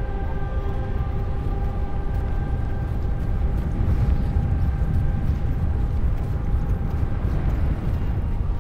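Strong wind rumbling low and steady, as in a blizzard. Several steady high tones fade out over the first few seconds.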